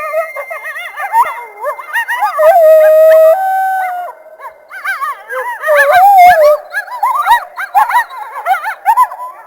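A group of coyotes howling and yipping together: several wavering calls overlap, with a held howl a few seconds in and a dense run of quick yips and rising-falling yelps after it.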